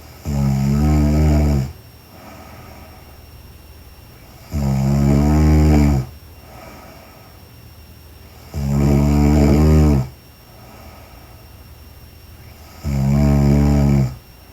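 A woman snoring in her sleep: four loud, low-pitched snores about four seconds apart, each lasting over a second, with a softer breath between them.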